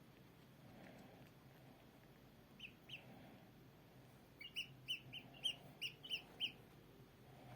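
A bird peeping in short, high chirps: two about three seconds in, then a quick run of about eight.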